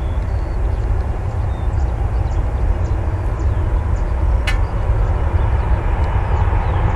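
Boeing 767-300ER's twin turbofan engines at takeoff power during the takeoff roll: a deep, steady jet roar that grows gradually louder as the airliner comes down the runway toward the listener, with a faint whine coming in near the end. A single sharp click about four and a half seconds in.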